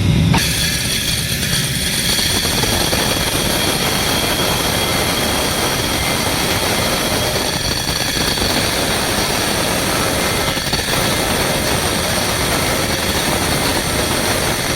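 Steady rushing machine noise with a faint high whine, unchanging throughout.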